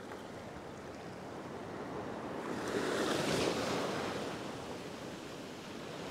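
Ocean waves breaking and washing over a rock ledge. One surge builds about two and a half seconds in, peaks soon after, then eases off.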